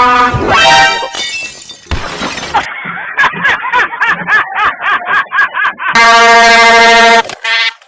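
Edited prank sound effects: a shatter-like crash over the first two seconds, then a wavering pitched sound, then a loud, steady train horn blast about six seconds in, lasting just over a second. A shorter, higher-pitched horn blast follows near the end.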